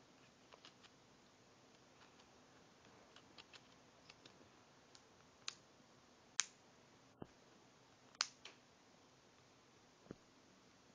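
Faint, scattered clicks of a Samsung Galaxy S4's plastic back cover being pressed and snapped into place around the phone's edges, the sharpest three a little after the middle.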